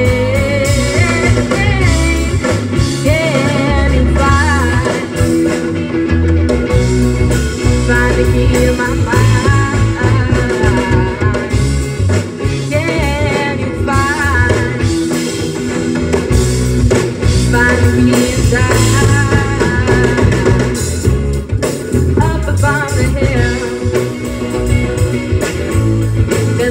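Live amplified rock band playing a song: electric guitars, bass and drum kit with a lead vocalist singing.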